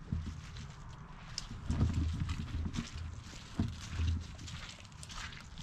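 Footsteps crunching through dry fallen leaves, irregular and uneven, with low thuds from the walker's steps and handling of the head- or body-mounted microphone.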